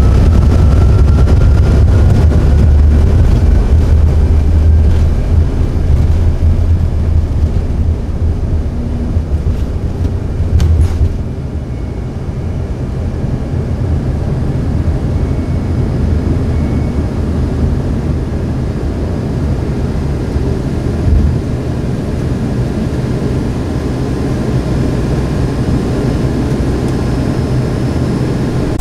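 Jet airliner cabin noise: a steady low rumble of engines and airflow with a faint rising whine at the start, easing a little about eleven seconds in.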